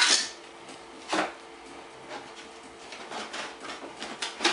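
Packaging and parts being handled during an unboxing: a few short scrapes and knocks, the loudest at the start and about a second in, then lighter clicks and rustles near the end.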